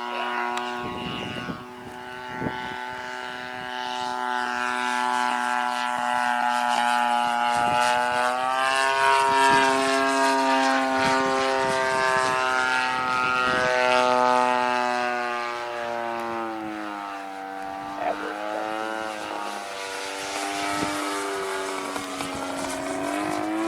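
30cc gas two-stroke engine of a radio-controlled RV-8 model plane flying overhead, its propeller buzz rising and falling in pitch and loudness as the plane manoeuvres.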